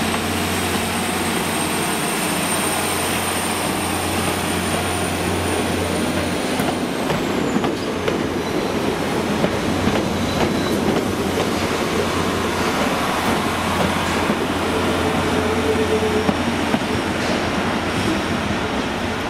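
Class 769 bi-mode multiple unit running past: a steady low drone with a high whine that falls in pitch about seven seconds in, and wheels clicking over the rails later.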